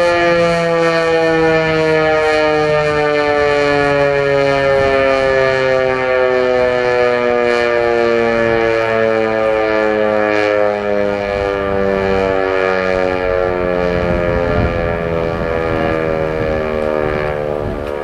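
American Signal T-121 outdoor warning siren winding down, its loud tone falling slowly and steadily in pitch. Its low part pulses on and off about once a second.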